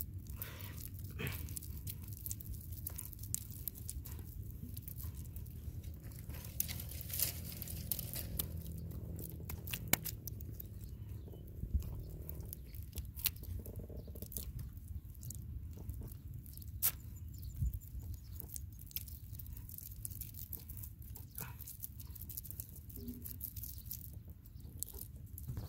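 Hands squeezing and patting wet mud around eggs: scattered soft squelches, pats and clicks over a low steady rumble.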